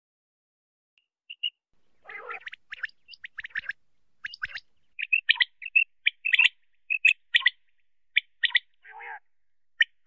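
Common quail calling: a rapid run of short, sharp, high-pitched notes in quick groups, starting about a second in. Around two seconds in and near the end there is a rougher, lower call.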